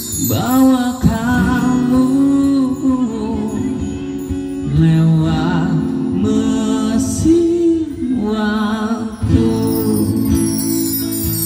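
A live song amplified through a microphone and PA speaker: a singer holds long notes with vibrato in three phrases over a steady backing of instruments.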